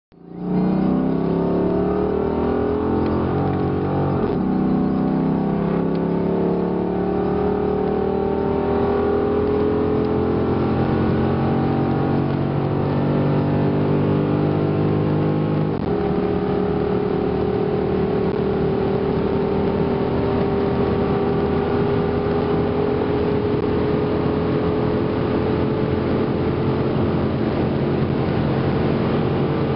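Dodge Magnum SRT-8's 6.1-litre Hemi V8 under full-throttle acceleration, heard from inside the cabin. The engine note climbs steadily in pitch, drops with an upshift about four seconds in and again about sixteen seconds in, then climbs slowly through the top gear.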